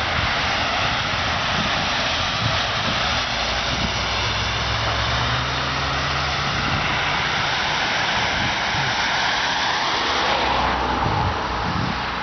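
Road traffic passing: a steady rush of tyre noise with the engines of passing vehicles, and a faint rising whine near the end.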